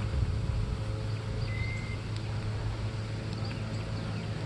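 Steady low hum under a faint even background noise, with one faint short high chirp about one and a half seconds in.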